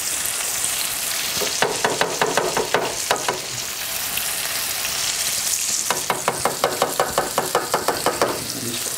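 Tomato sauce sizzling in a non-stick frying pan on a gas burner, with a spatula stirring and scraping the pan in two runs of quick strokes, about five or six a second, the first starting about a second and a half in and the second about six seconds in.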